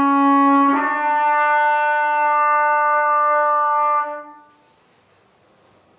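Solo brass instrument playing the closing phrase of a song: one note changes to a slightly higher one just under a second in. That note is held for about three seconds and dies away around four seconds in, leaving faint room tone.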